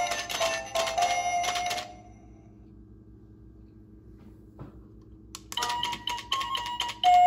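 Hallmark Happy Tapper figurines playing a tinny electronic Christmas tune, with rapid clicking from their tap-dancing feet; the song stops about two seconds in. After a pause holding only a low hum, the clicking taps and short tones start up again near the end as the next song begins.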